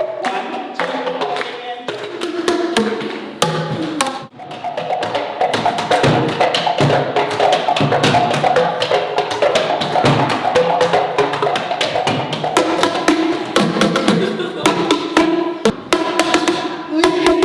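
Percussion-led music: rapid wooden knocks and clicks over pitched notes, with a brief break about four seconds in.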